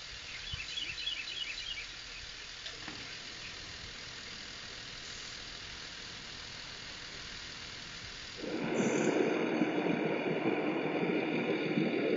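Outdoor background noise through a home security camera's microphone: faint and steady, with a few high chirps near the start, then an abrupt switch about eight and a half seconds in to a louder, steady rumbling noise.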